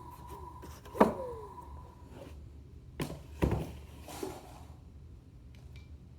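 Sharp knocks and clunks from a Onewheel's hub motor, which the owner suspects is bad. A steady high tone with a few short falling chirps cuts off right after the loudest knock, about a second in. Two more knocks follow around three seconds in, and a softer one a little later.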